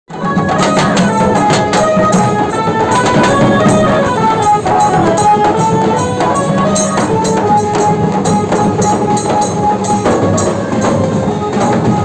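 Loud procession music: dhak drums beaten in a fast, dense rhythm, with a melody of held notes stepping up and down over them.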